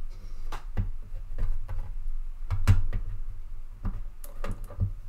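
Plastic LEGO bricks clicking and knocking as a hand-built figure's arms are folded down and its joints handled: a string of irregular sharp clicks over a steady low hum.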